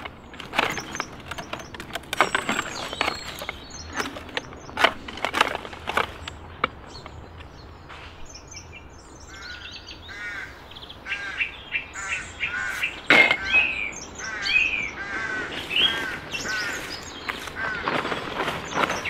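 Garden loppers cutting through branches. A sharp crunching snip comes every second or so for the first six or seven seconds, and a few more cuts follow later. From about halfway, birds call over it in quick runs of harsh chirps.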